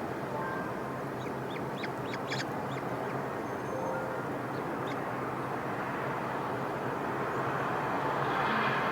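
Steady outdoor background hiss and rumble, with a cluster of short, high bird chirps a second or two in and a few more midway. A broad rushing sound swells near the end.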